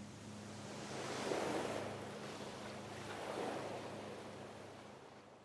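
Sea water rushing and washing, surging twice, over a faint steady low hum; it fades out near the end.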